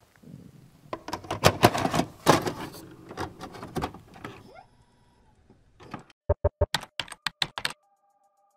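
A run of sharp, uneven mechanical clicks and clacks like typing, then after a short pause a quicker run of about eight hard clacks. A faint steady electronic tone sets in near the end.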